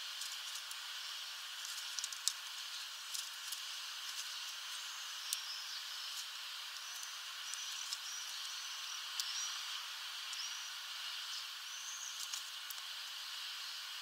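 Scattered sharp clicks of a male common chaffinch pecking and cracking sunflower seeds among loose husks on a feeder tray, over a steady hiss.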